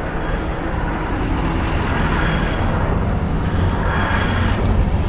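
Wind rushing over the microphone with tyre and road noise while riding an e-bike: a steady rushing rumble that grows slightly louder.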